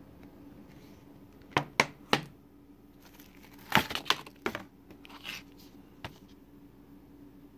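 Shrink-wrapped plastic Blu-ray cases being handled: three sharp clacks, then a tight cluster of clacks with plastic crinkling, and a last click near the end.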